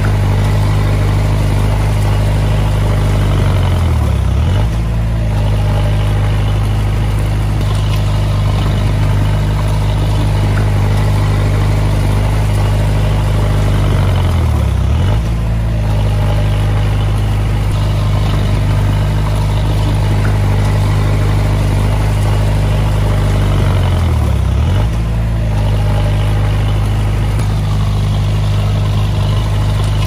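Komatsu D20A bulldozer's diesel engine running steadily. Three times, about ten seconds apart, its pitch dips sharply and comes back up within about a second.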